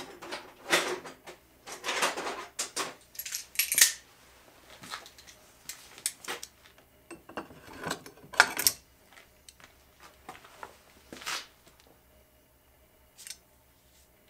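Tin snips working at the freshly cut end of a steel bar: a string of sharp metallic clicks and clinks in clusters that thin out after about nine seconds.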